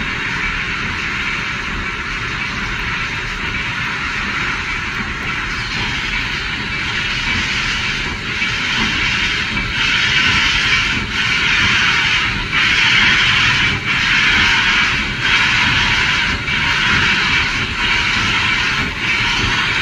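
Reading & Northern T1 No. 2102, a 4-8-4 steam locomotive, working slowly with its cylinder cocks open: a steady, loud hiss of steam. About eight seconds in it grows louder and breaks into a rhythmic chuff, a little over one beat a second.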